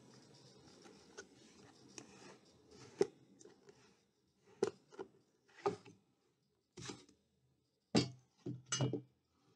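Foam-board model pieces joined by small disc magnets being handled and pulled apart: soft rustling at first, then a series of sharp clicks and light knocks as the magnets let go and the pieces are set down on the desk.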